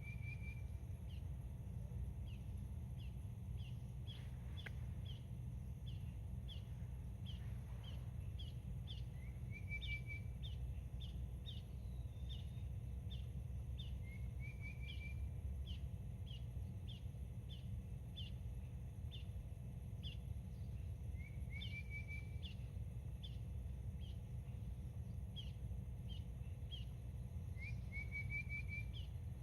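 Songbirds calling: short high chirps repeated about twice a second, with a brief lower trill every several seconds, over a steady low rumble of outdoor ambience.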